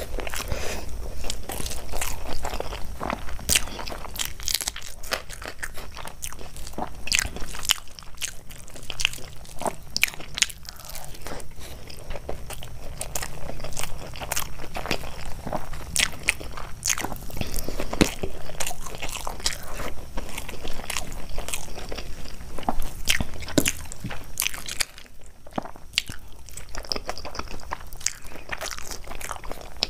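A person chewing and biting food close to the microphone, with frequent sharp, irregular crunches and mouth clicks, and a brief quieter pause near the end.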